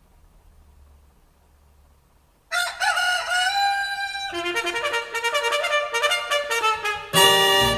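Recorded music played over a car's Focal K2 Power 165KR component speakers: a pause of near silence with a faint low hum, then about two and a half seconds in a horn-like line with bending notes, followed by quick runs of notes that get louder near the end.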